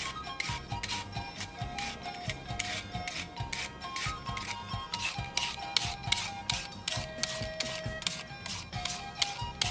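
Carrot being chopped up in rhythmic scraping strokes, about three a second, over background music with a simple melody.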